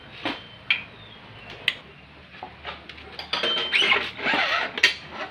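Metal motorcycle parts clinking and scraping as they are handled: a few separate sharp clinks in the first two seconds, then a busier stretch of scraping and rattling about three to five seconds in.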